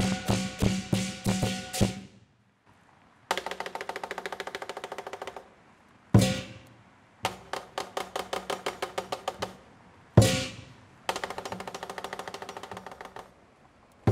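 Chinese lion dance percussion of drum and cymbals. After a pause, it plays runs of fast, even strikes of about two seconds, each ending in a single loud crash that rings out, three times over.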